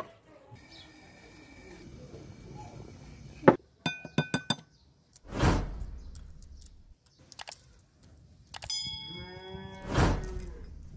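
Light clicks and clinks about four seconds in, two dull thuds, and a pitched animal call falling in pitch near the end.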